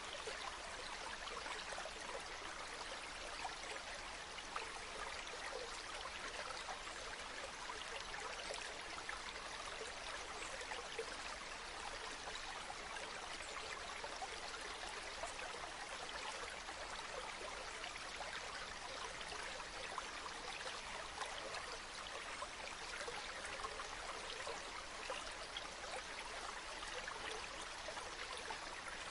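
Steady running water from a spring, a constant trickling stream with fine splashing.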